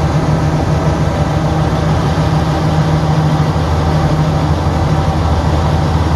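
Chevrolet Express 3500 van engine idling steadily with an even, low hum.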